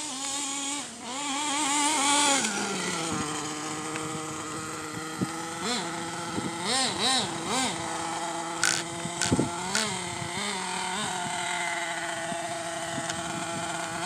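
Small nitro engine of a radio-controlled Ofna truck running and revving as the truck drives. Its pitch wavers and rises about two seconds in, then blips up and down several times in quick succession around the middle, with a few sharp clicks shortly after.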